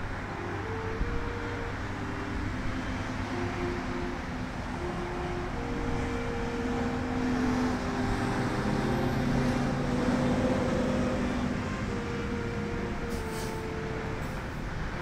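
Steady outdoor noise of passing road traffic and wind, with a few faint held tones that step from pitch to pitch like a slow tune.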